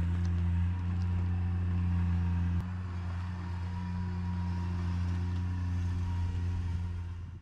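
An engine running steadily with a deep, even hum; the level drops slightly about two and a half seconds in.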